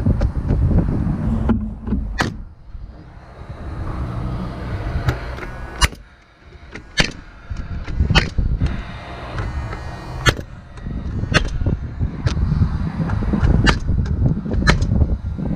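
Paslode Impulse gas-powered framing nailer firing nails: about ten sharp shots at irregular intervals of one to two seconds, over a low rumble.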